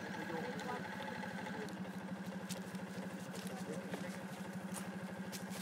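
An engine idling steadily with a rapid, even pulse. A few faint squeaks sound in the first second, and a few light ticks come in the later half.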